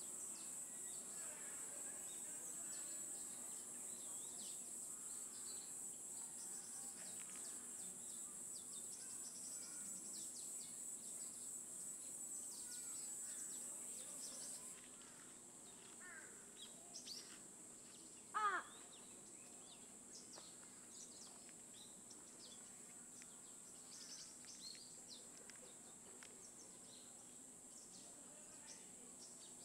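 Faint woodland ambience: a steady high insect drone that cuts off about halfway through, with scattered small bird chirps and one short, louder bird call falling in pitch a little after the middle.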